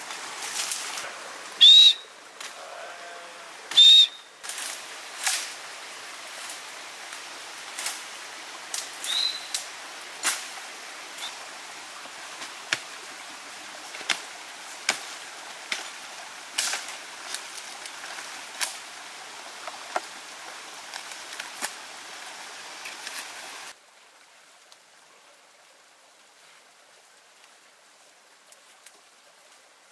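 Kernels popping and crackling in a hot pan: a steady sizzling hiss scattered with sharp pops. It is broken by two loud, short, high chirps near the start. About three-quarters of the way through, the hiss drops away suddenly, leaving only faint sounds.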